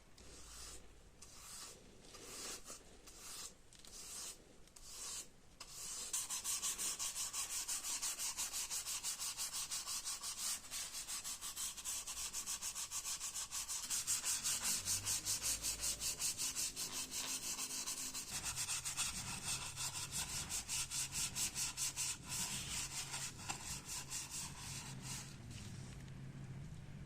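Rusty metal part being scrubbed by hand with an abrasive to strip the rust: a few slow, separate strokes, then quick, even back-and-forth strokes from about six seconds in.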